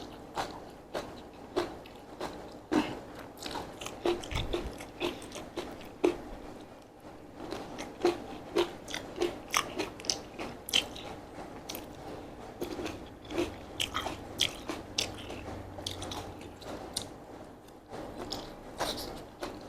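Close-miked eating of Korean mixed sweet potato glass noodles with vegetables: a steady series of wet, sharp chewing clicks and crunches, about one or two a second.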